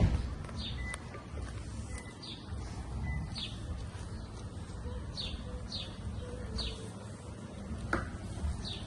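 A small bird chirping, about ten short, high chirps that each fall in pitch, spaced a second or so apart, over a steady low background rumble.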